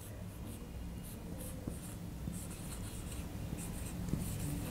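Marker pen writing on a whiteboard: a run of short, irregular scratchy strokes as letters are written out.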